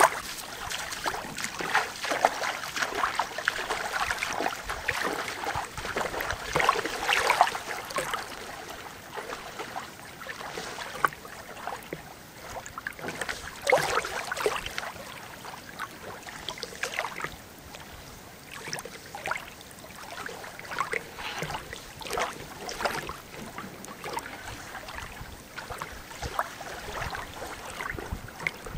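Small waves lapping and splashing irregularly against a shallow sandy lake shore.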